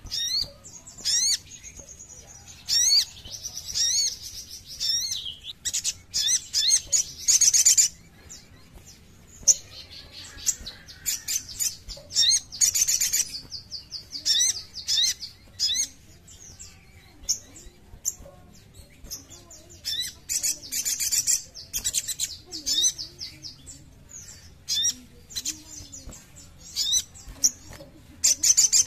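Sogok ontong (sogon) bird calling in bursts of quick, sharp, rising chirps, with short pauses between the bursts.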